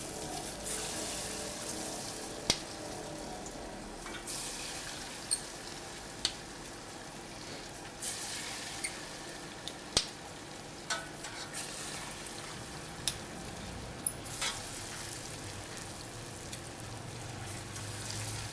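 Falafel balls deep-frying in hot oil: a steady sizzle with sharp pops every second or two.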